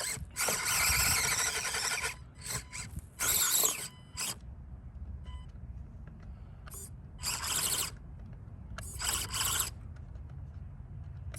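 Axial SCX24 micro RC crawler's electric motor and gears whining in short bursts of throttle as it tries to climb a hill in reverse: a long burst at the start, then three shorter ones.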